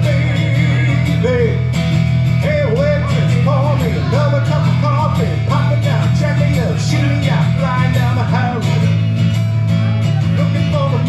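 A man singing live to his own strummed acoustic guitar, amplified through a microphone and PA.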